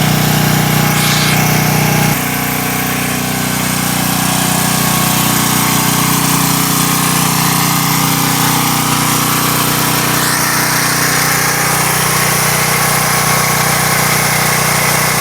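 Generator engine running steadily and loudly, its note shifting abruptly about two seconds in.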